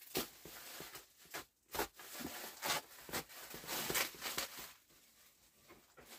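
Black plastic wrapping crinkling and rustling as it is handled, a run of short crackles that quietens near the end.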